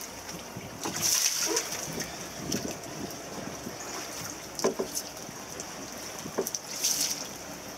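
Water splashing and sloshing, with a few short knocks: live mackerel thrashing in a cool box of seawater aboard a boat. The loudest splashes come about a second in and again near the end.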